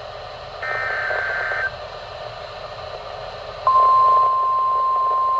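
NOAA Weather Radio emergency alert from a weather radio. A one-second burst of SAME digital header data sounds, then about two seconds later the steady 1050 Hz warning alarm tone comes on and holds, over a hiss of reception static. It is the start of a severe thunderstorm warning alert.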